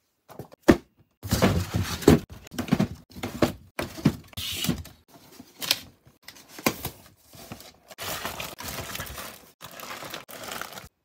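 Boxed plastic model kits being packed into a large cardboard shipping box: repeated knocks and thuds of the kit boxes against one another and the carton, with scraping and rustling as they slide into place. A single sharp knock comes just under a second in; the handling noise runs on almost without pause after that.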